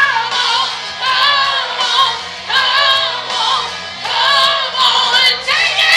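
Music with sung vocals, the singing coming in short repeated phrases of about a second each.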